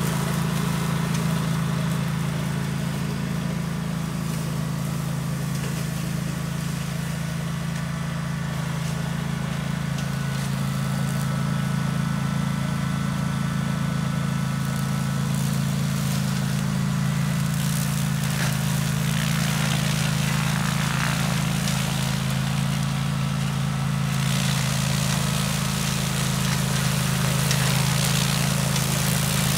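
Kawasaki engine of a DR brush cutter running steadily at an even speed.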